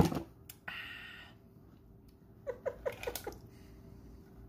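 A tall glass of iced drink being handled and sipped through a straw. There is a sharp knock of the glass at the start, a short rushing sound about a second in, and a quick run of small clicks and gulps near three seconds in.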